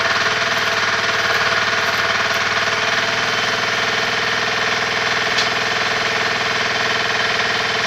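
Welding equipment's power source running steadily: an even mechanical drone with a fast, fine pulsing that carries on unchanged whether or not the arc is struck. A single short tick about five seconds in.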